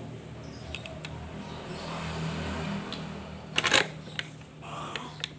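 Scraping and rustling with scattered clicks over a low steady hum, and one short loud rasp about three and a half seconds in.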